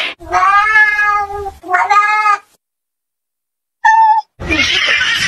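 Cat meowing: two drawn-out meows in quick succession, then after a pause one short, higher-pitched meow. A stretch of loud noise follows near the end.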